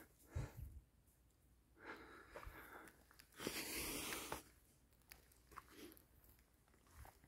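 Faint footsteps and rustling in dry leaf litter and undergrowth as someone walks through woodland, with a soft thump just after the start and a rushing noise lasting about a second midway.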